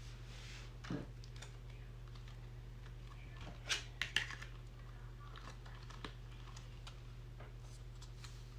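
A few light clicks and taps from small plastic slime containers being handled and put away, over a steady low hum. One click comes about a second in, a cluster of them near the middle, and another a little later.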